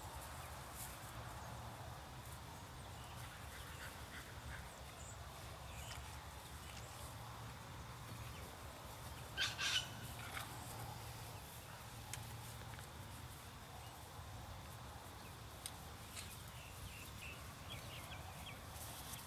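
Quiet outdoor ambience: a low steady rumble with faint scattered bird chirps, and two or three short sharp animal calls close together about halfway through.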